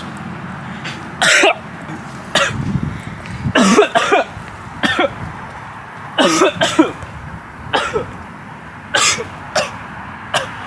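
A man coughing hard and repeatedly, with short harsh coughs and throat clearing about every second, some coming in quick pairs. This is a coughing fit from a large vape hit.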